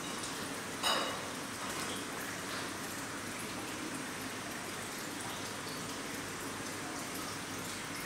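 Steady trickle of running water, with one short sharp click about a second in.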